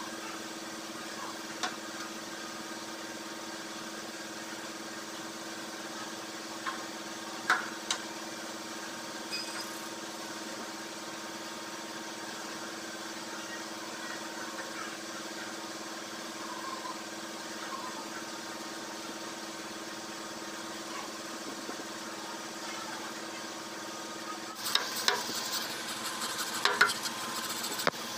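Steady mechanical hum with one constant tone. Over it come a few sharp metal taps as a hand tool works the radiator's top tank, then a burst of rapid clanking and scraping on the tank near the end.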